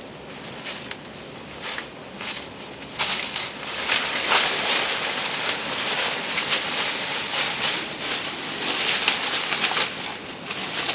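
Hedge leaves and dry leaf litter rustling and crackling as dogs push through the undergrowth, louder and busier from about three seconds in until near the end.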